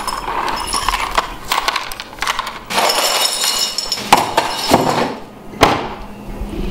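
Broken light-bulb glass clinking and rattling as it is swept with a broom into a dustpan and dumped into a trash bin, with a few sharp knocks.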